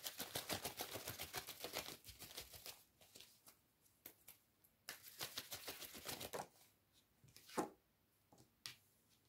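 Tarot cards being shuffled or flicked through in the hands: two spells of rapid papery clicks, then a few single ticks as a card is drawn and laid down.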